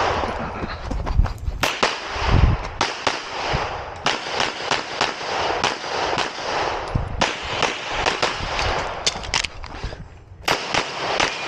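Rapid fire from a 9mm Canik METE SFT Pro pistol during a timed competition stage. The shots come in quick pairs and short strings, broken by brief pauses.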